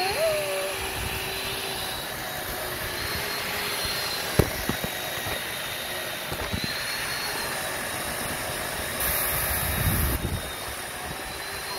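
Electric chainsaw running steadily, a high motor whine that wavers slightly in pitch over a constant rushing noise. A sharp knock sounds about four seconds in, and the saw gets louder and hissier for about a second near the end.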